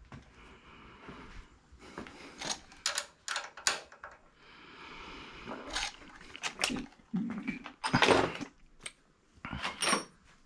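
Metal hand tools clinking and clattering: a run of sharp knocks and clacks with short scrapes between them, the loudest about eight seconds in, as wrenches and sockets are rummaged through for the right size.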